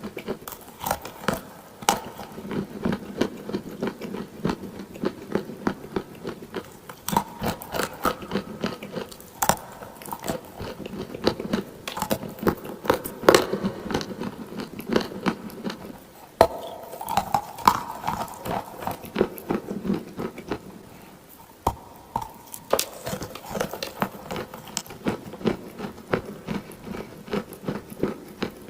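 Close-miked biting and chewing of clay, a run of many sharp, irregular crunches.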